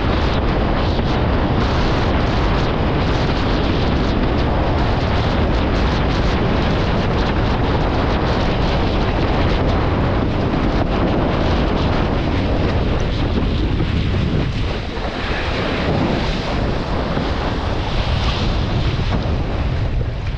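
Strong wind buffeting a board-mounted camera microphone, over the rush and slap of water under a windsurf board moving fast through choppy sea. The noise eases briefly about three-quarters of the way through, then comes back with more hiss.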